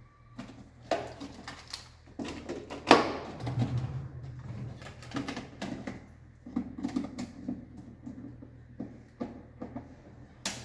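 Clicks, knocks and rattles of circuit breakers being handled and fitted in an Eaton MEM Shield distribution board, with the loudest knock about three seconds in.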